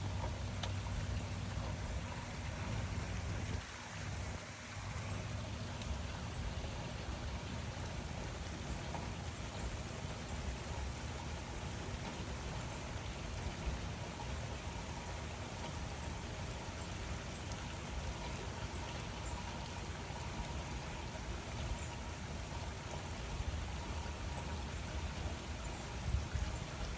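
Steady rain falling in an even hiss with a low rumble underneath. It dips briefly about four seconds in.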